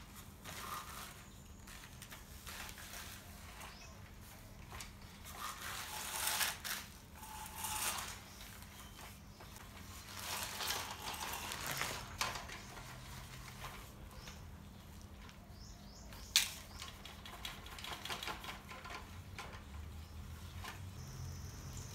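Dry sand scraping and pattering in irregular bursts as a toy excavator's plastic bucket digs into it and dumps it, with small plastic handling noises and one sharp click about three-quarters of the way through.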